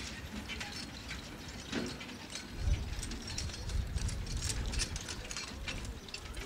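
Horse-drawn carriage and harness rattling and clicking irregularly as a pair of horses pulls it across grass, with a low rumble underneath.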